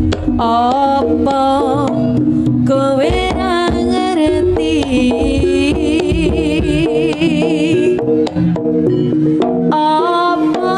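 Javanese jaranan music: kendang hand drums beating under a sustained drone and a wavering melodic lead line.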